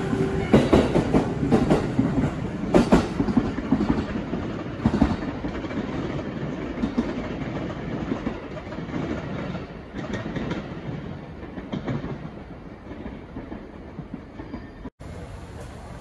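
E257 series electric express train pulling out of the station, its wheels clacking over rail joints, loud at first and fading as it draws away. The sound cuts off abruptly near the end.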